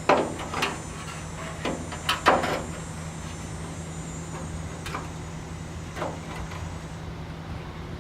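Scattered knocks and clatters from tools and sheet metal being handled, loudest near the start and about two seconds in, over a steady low hum.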